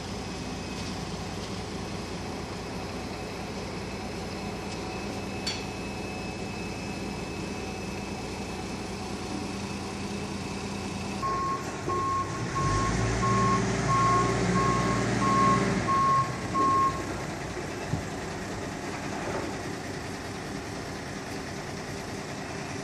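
Diesel engine of a container-handling machine running steadily, then a reversing alarm beeping about twice a second for several seconds about halfway through as the engine revs up under load.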